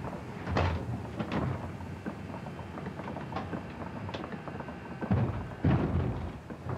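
Sea surging and splashing around a small boat held against rocks, with several heavy thuds of water or hull, the loudest two about five seconds in.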